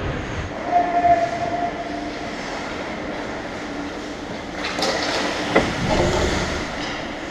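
Ice hockey play heard close to the goal: a steady scraping and rumbling of skates on the ice, with two sharp knocks of sticks or puck a little past the middle.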